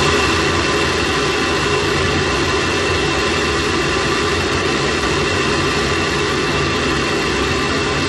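Space Shuttle solid rocket booster burning late in its two-minute burn, as picked up by the booster's onboard camera: a steady, unbroken rumbling roar with a few faint steady tones above it.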